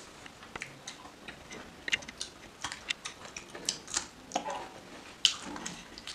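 Close-miked eating sounds of a person chewing spicy instant noodles: irregular wet clicks and smacks of the mouth, with the loudest snap about five seconds in.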